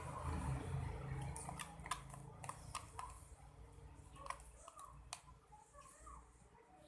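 A spoon clicking and tapping in a container while thick shampoo-and-salt slime is stirred and handled: a scatter of sharp light clicks. A low rumble underneath fades out in the first half.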